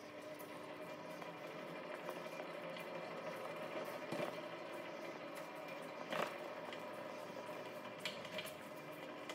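Automatic bag emptying machine running: a steady mechanical hum with a couple of sharp knocks, about four and six seconds in.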